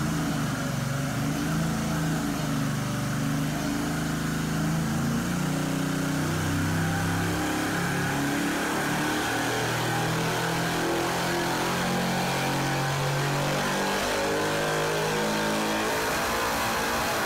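A 5.3-litre LS V8 running on an engine dynamometer, breathing through long-tube headers, at a steady level.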